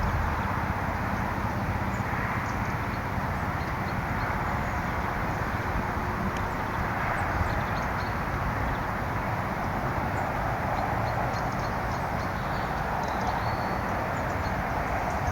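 Steady outdoor background rumble and hiss, with faint short high chirps of small birds scattered through.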